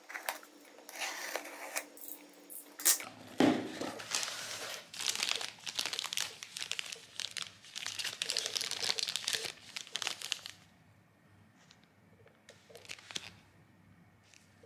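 Box cutter slitting the packing tape on a cardboard box, then cardboard and clear plastic packaging crinkling and rustling as the contents are unpacked, with a few sharp clicks. The rustling stops about ten and a half seconds in, leaving only faint handling clicks.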